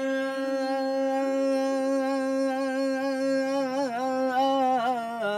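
A man's voice singing a devotional Punjabi kalam unaccompanied. He holds one long steady note for nearly four seconds, then breaks into quick ornamental turns near the end.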